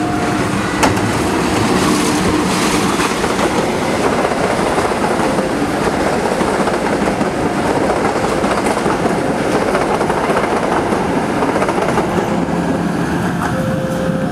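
Passenger coaches of a diesel-hauled train running past at speed close by: a loud, steady rumble of steel wheels on rail with clickety-clack over the rail joints. A single sharp knock comes about a second in.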